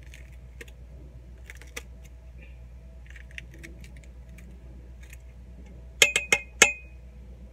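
Metal kitchen scissors snipping a pepper over the stainless steel inner pot of an Instant Pot. Soft scattered clicks, then, about six seconds in, four quick, sharp metallic clicks that ring briefly.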